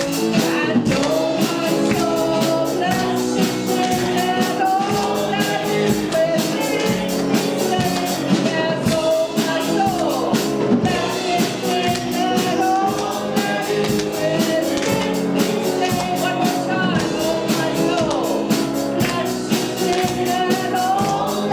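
Live church worship band music with a steady beat.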